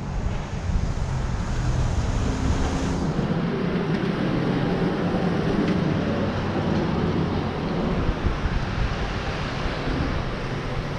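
Street noise on a walk: wind rumbling on the microphone, with a car going by on the road.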